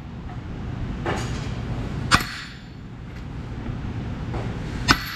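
Hand sledge hammer striking a steel planet gear pin in a Caterpillar D10R final drive planetary carrier to seat it flat: a light knock about a second in, then two sharp metallic blows a few seconds apart, each with a ringing ping. The pinging is the sign that the pin is sitting flat.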